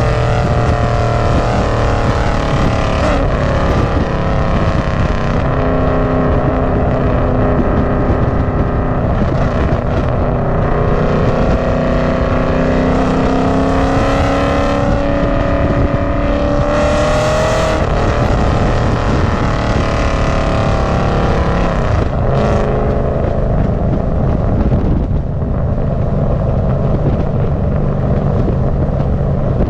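Ford Mustang's 4.6-litre three-valve V8 engine running hard under way. Its pitch climbs steadily for several seconds, drops off about two-thirds of the way through, then settles lower.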